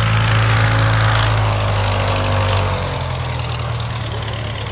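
An early pusher biplane's engine running at full power as the plane takes off past the camera. The engine drone drops in pitch about three seconds in as the plane goes by, then fades.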